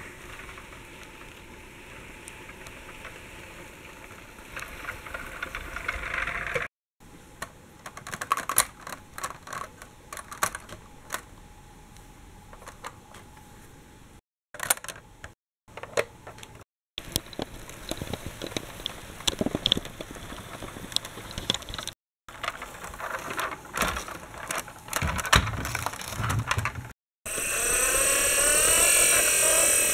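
Clicks and rattles of a plastic toy tram being handled, its doors snapping open and shut, in several short takes broken by brief silences. Near the end a loud warbling electronic sound starts.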